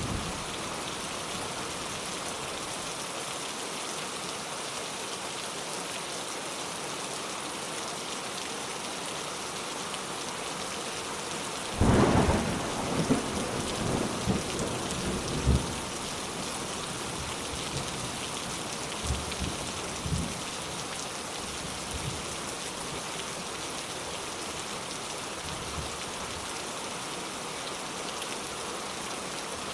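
Steady rain as an even hiss. About twelve seconds in, a loud clap of thunder, followed by a few seconds of rumbling, with fainter low rumbles later on.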